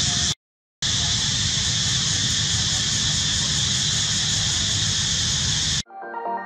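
Steady loud outdoor hiss with a low rumble under it, which cuts out for about half a second just after the start. About six seconds in, electronic music starts.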